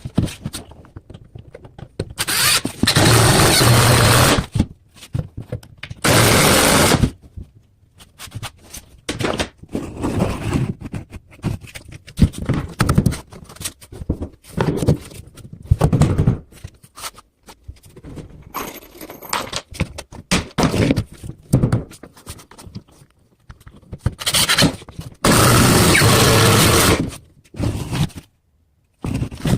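A power drill runs in three short bursts, driving screws up through the cabinet to join two base cabinets at the seam. Between the bursts come scattered knocks and scrapes from handling the cabinets and tools.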